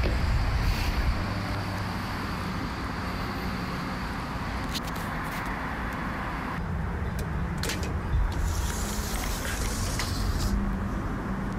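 Outdoor city ambience: a steady low rumble of road traffic, with a few light clicks and knocks about five and eight seconds in.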